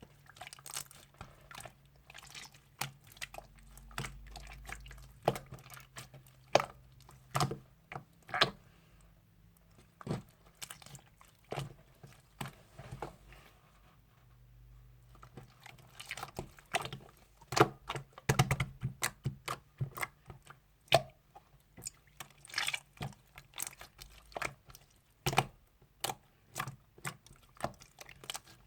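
Clear slime being squeezed and pressed by hand, giving irregular sticky clicks and small wet pops.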